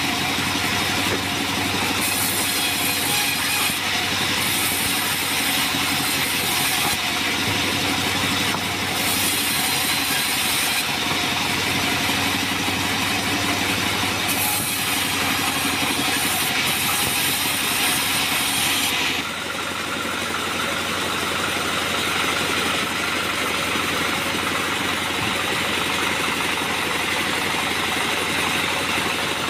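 Bandsaw sawmill running steadily, its blade cutting acacia wood slabs in repeated passes, with a high hiss that comes and goes every few seconds. About two-thirds of the way in the hiss stops and only the machine's steady running is left.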